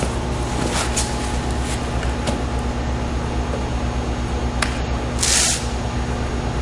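Steady low drone of running machinery with a constant hum, a few light knocks, and a short hissing burst about five seconds in.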